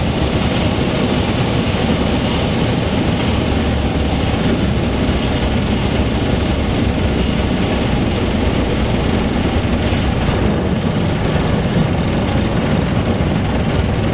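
Steady cabin noise of a Van's RV-12 light aircraft in the landing flare and touchdown: its Rotax engine turning over at idle with the propeller windmilling, mixed with airflow and a low rumble.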